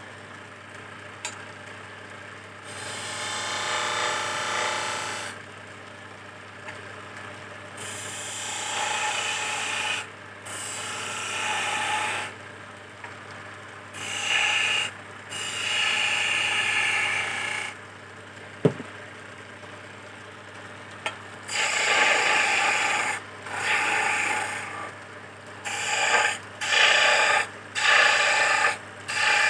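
A hand chisel cuts into spinning teak on a wood lathe in repeated scraping passes of one to three seconds, shaping a chess piece, with the lathe's steady motor hum between passes. There is a single sharp click about two-thirds of the way through.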